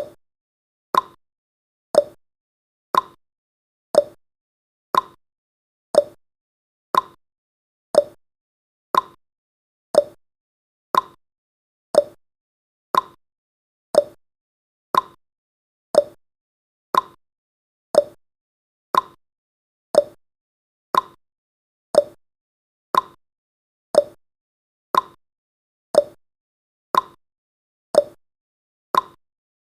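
Countdown timer's tick sound effect: a short, sharp tick once every second, each dying away quickly, in an even unbroken rhythm.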